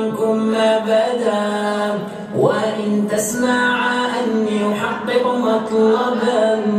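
A singing voice drawing out long, ornamented melodic lines in Arabic over music, with one sharp upward swoop about two and a half seconds in.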